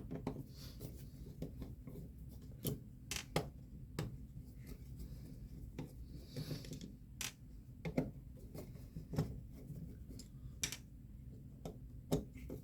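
Irregular light clicks and taps, about a dozen, from the parts of a gumball machine coin mechanism being handled and taken apart.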